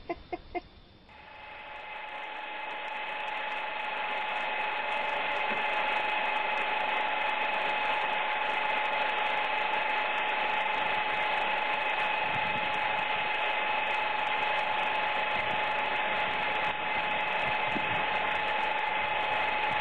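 Steady whir of a small motor with a hiss, growing louder over the first few seconds and then holding level, after three short clicks at the start.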